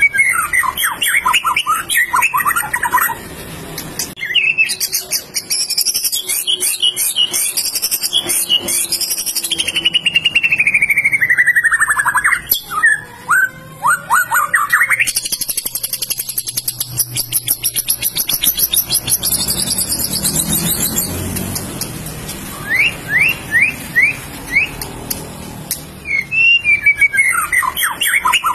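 White-rumped shama singing a long, varied song: runs of fast downward-sweeping whistles, a long falling whistle, a stretch of high buzzy, rasping notes and a quick string of short rising notes, phrase after phrase with brief pauses between.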